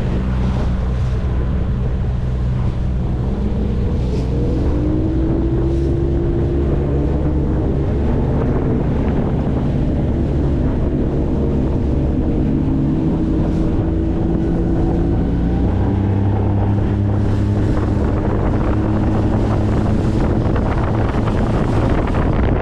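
Bass boat's outboard motor running under way, its pitch stepping up about four seconds in and shifting again later, with wind buffeting the microphone.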